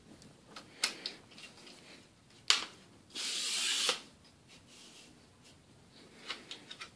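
Zeikos tripod being handled: a few sharp clicks and knocks, then a brief scraping hiss just past three seconds in, and light clicks near the end.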